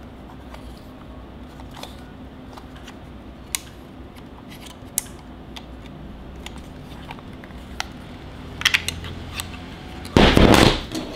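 Small plastic clicks and taps from the hard plastic housing and battery cover of an Andoer W49 LED video light being handled, with a quick cluster of clicks a little before the end. Near the end comes a loud rustle of packaging lasting under a second.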